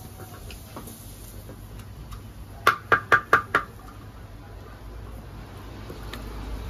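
A quick run of five sharp metallic knocks about three seconds in: a small metal spreader tapping on a flat iron griddle (tawa) while spreading chocolate over a thin regag flatbread. A steady low hum runs underneath.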